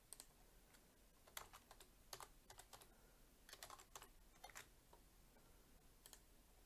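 Faint computer keyboard typing in short bursts of keystrokes, followed by a single click near the end.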